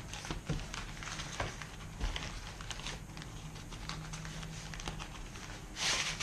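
Handling of a fishing rod's packaging: scattered small clicks and taps, then a loud rubbing rustle near the end as the rod is drawn out.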